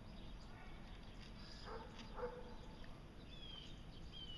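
Faint outdoor background with two short animal calls about half a second apart in the middle, then two brief high chirps near the end.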